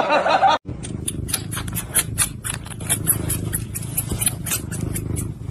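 Cat chewing and nibbling on a person's finger: rapid, irregular little clicks of teeth and mouth over a steady low rumble.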